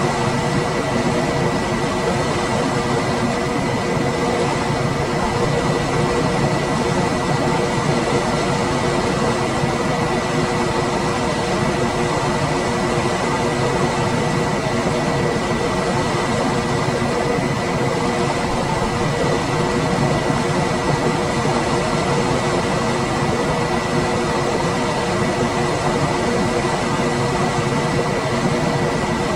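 Room air conditioner running steadily: an even rushing of air from the fan with a faint steady hum and a thin high whine over it.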